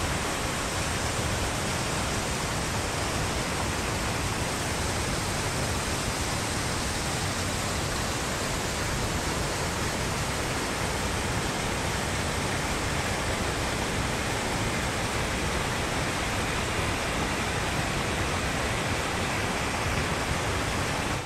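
Small mountain waterfall and stream rushing: a steady, even roar of falling water.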